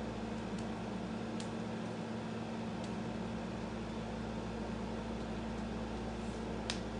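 Steady hum and hiss of a running room air conditioner, with a few faint clicks, the clearest near the end.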